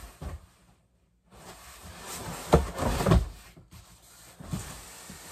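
Cardboard packing box being handled, with scrapes and thumps and two loud knocks near the middle; the sound cuts out completely for a moment about a second in.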